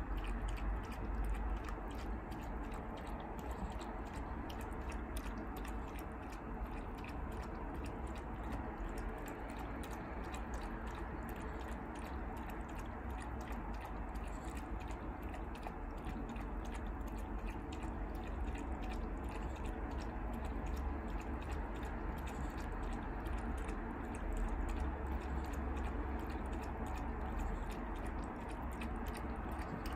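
Chihuahua puppy chewing and gnawing on a toy, a steady run of many small clicks.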